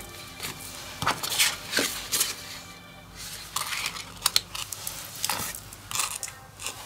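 Cut pieces of white cardstock being handled, slid and set down on a tabletop: irregular rustles and light taps.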